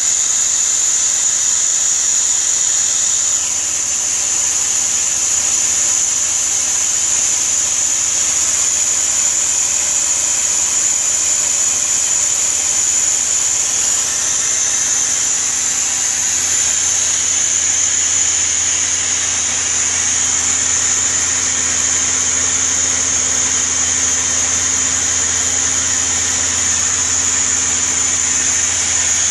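Mazak CNC lathe turning a steel ball screw: a steady machining noise with a continuous high-pitched whine over a low hum.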